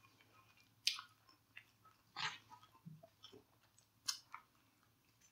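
Metal chopsticks stirring saucy noodles in a takeout container: a few quiet, short, wet clicks and squelches about a second apart.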